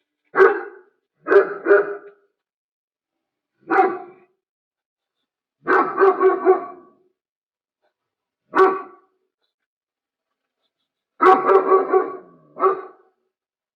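German Shepherd barking in short bouts with pauses between: a single bark, a double bark, single barks, and two runs of three or four quick barks.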